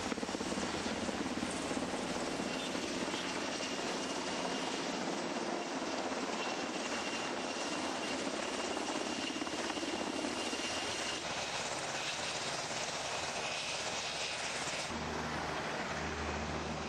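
US Navy evacuation helicopter flying low overhead: steady rotor wash and turbine noise with a thin high whine. About 15 s in it gives way to a lower road-vehicle engine sound.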